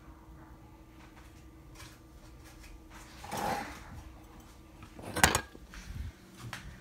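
A sharp double click about five seconds in, as a latch catches, after a brief rustling swell, with a few soft knocks just after.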